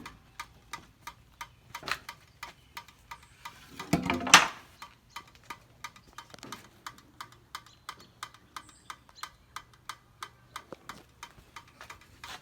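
A truck hood being shut about four seconds in, amid steady rapid ticking at about two to three clicks a second.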